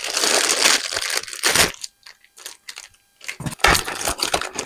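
Plastic bags and foam wrap rustling and crinkling as packed accessories are handled, steady for the first second and a half, then in shorter rustles near the end.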